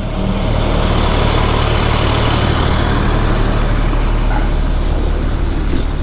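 A vehicle driving along, with a steady low engine drone under a rush of wind and road noise.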